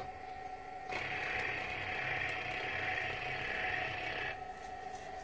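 Electric whirring from a radio-controlled M41A3 tank model running with its smoke units on. It starts about a second in, runs steadily for about three and a half seconds, then cuts off, leaving a faint steady hum.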